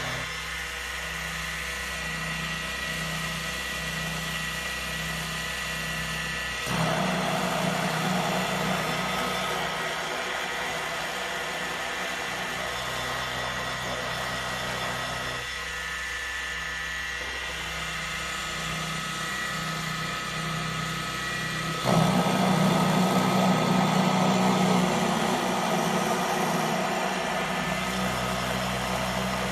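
Homemade Arduino-controlled CNC milling machine running: a motor whine over a low hum that pulses about once a second. About 7 seconds in and again about 22 seconds in, it turns louder and rougher for several seconds, then drops back to the pulsing hum.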